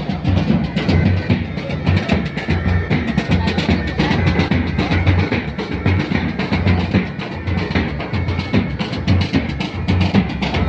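Music with heavy, continuous drumming and a strong bass beat.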